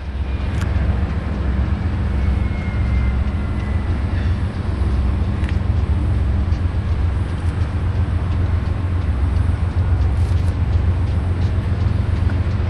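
Freight train moving through a rail junction: a steady low rumble, with a faint thin squeal a couple of seconds in and scattered light clicks.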